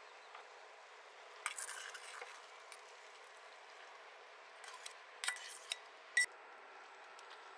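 Kitchen utensils scraping and clinking against a dish or pan: a run of scrapes, a few more clicks, then one sharp clink that rings briefly near the end, over a steady faint hiss.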